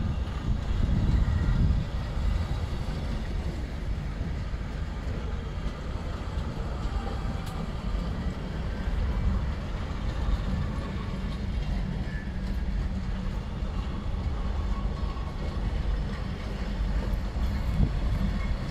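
Vintage FS passenger coaches of a historic train rolling past close by: a steady low rumble of wheels on the rails.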